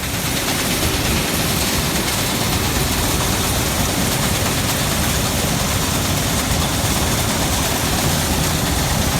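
Gleaner M2 combine harvester running steadily while picking soybeans, a constant engine and machine noise.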